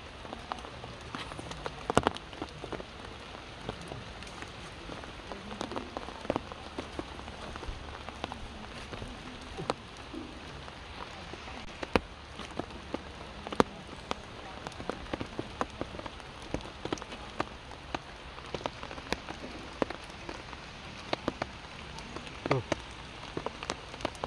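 Water drops falling on wet leaves and rocks: a steady hiss with irregular sharp drop strikes, several a second.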